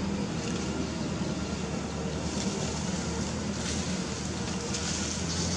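Steady low motor hum over continuous outdoor background noise.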